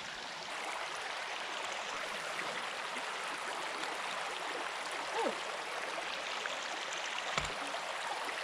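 Creek water running fast over shallow rocks, a steady rushing hiss, with a soft low thump about seven seconds in.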